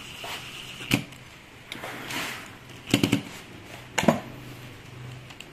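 Hand tools and the plastic body of a cordless drill being handled during reassembly: sharp clicks and knocks about a second in, a quick cluster near three seconds and one more just after four seconds, over a faint steady low hum.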